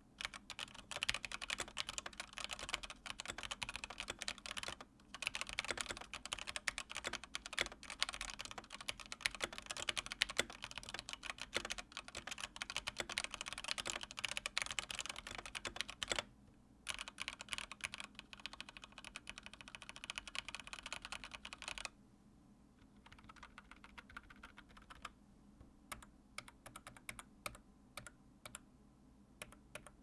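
Typing on a HyperX Alloy Elite 2 mechanical keyboard with HyperX Red linear switches: a fast, dense run of key clacks with two short pauses. About two-thirds of the way through it thins out to slower, separate key presses.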